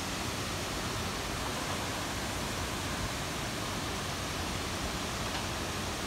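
Steady rushing of water from a tall waterfall and the rocky stream below it, an even hiss with no breaks.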